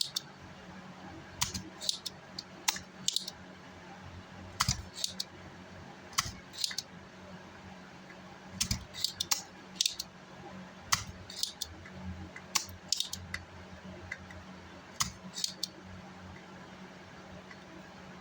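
Irregular sharp clicks and snips of small metal hand tools working on an amplifier circuit board, single and in quick little clusters, over a faint steady hum.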